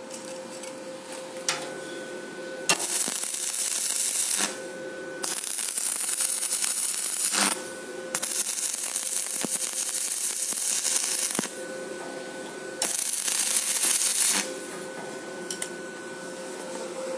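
Stick welding on rusty steel plate with a Dalima X7-200G mini inverter arc welder: four runs of arc crackle and hiss, each about two to three seconds long. A steady hum fills the gaps between runs.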